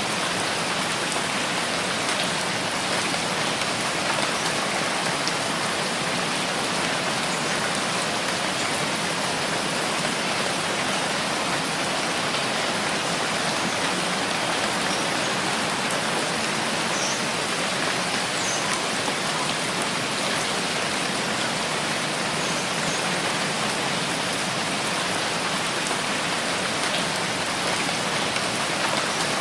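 Steady rainfall: an even hiss of rain falling on surfaces, with a few faint high drips standing out now and then.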